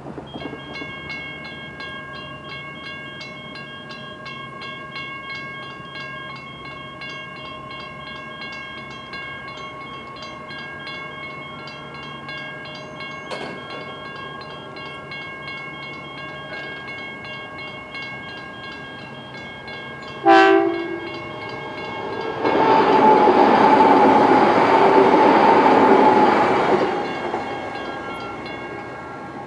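Level crossing warning bells ringing continuously. About twenty seconds in, a train gives one short, loud horn blast, and a couple of seconds later it passes over the crossing with a loud rush of noise lasting about four seconds.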